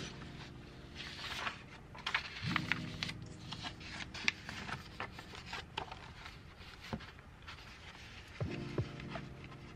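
Printed paper sheets rustling and sliding against each other as they are shuffled by hand, with crisp crinkles and taps, over background music that swells in and out.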